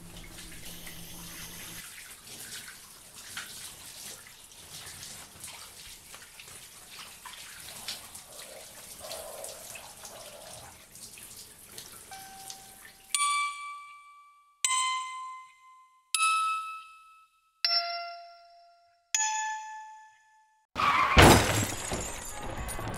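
Running water for about thirteen seconds. Then six single ringing notes at differing pitches, about a second and a half apart, each dying away. A loud crash comes near the end and runs into ringing.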